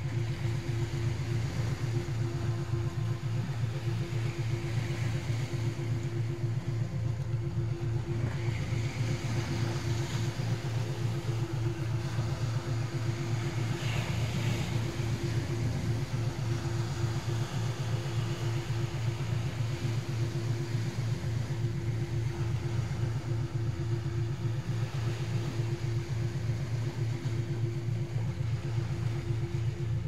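A synthetic meditation tone, billed as 3.5 Hz: a low, rapidly pulsing drone with a steady hum above it, laid over the wash of sea waves on a stony shore. The waves swell several times.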